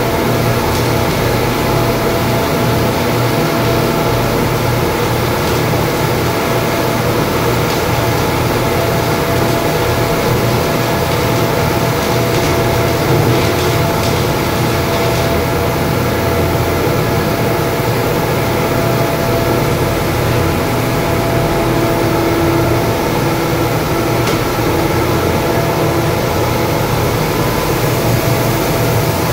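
Steady, loud industrial machinery drone with several constant hum tones inside a steel ship compartment, unchanging throughout.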